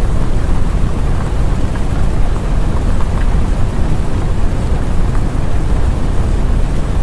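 Steady, dense noise with a deep rumble, like heavy rain, forming the background bed of a subliminal affirmation audio track.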